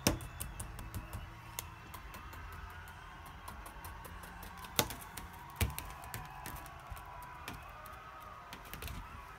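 Irregular plastic clicks and taps from a TV remote control knocking on a wooden floor and furniture edge, with a few louder knocks, over faint background music.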